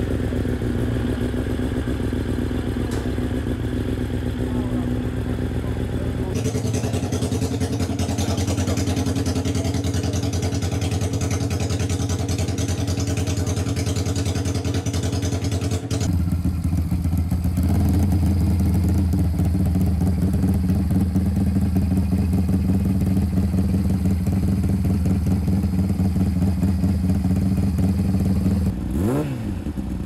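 Racing motorcycle engines running in the paddock. A steady engine note changes character about six seconds in. After a cut, another engine idles with a strong, even low note. Near the end the throttle is blipped, the pitch sweeping quickly up and back down.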